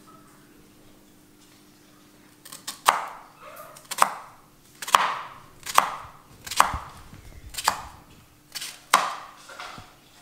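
Kitchen knife chopping raw green plantain on a bamboo cutting board: sharp chops about once a second, starting some two and a half seconds in, each with a short ring.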